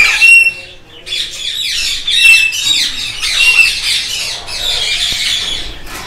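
Caged parakeets squawking: a run of repeated harsh calls, several with a short shrill whistle-like note, with a brief lull about a second in.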